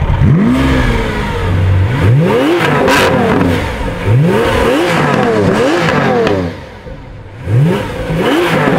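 Car engines being revved in a string of sharp blips, the pitch rising and falling back each time, several overlapping. There is a short lull near the end before more revs.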